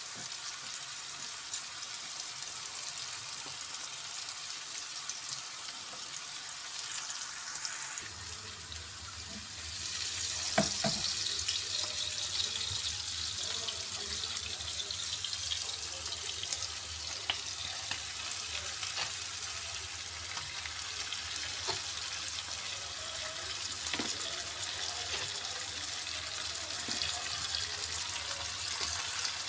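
Chopped bell peppers frying in oil in a pan: a steady sizzling hiss with a few light knocks, a little louder from about ten seconds in.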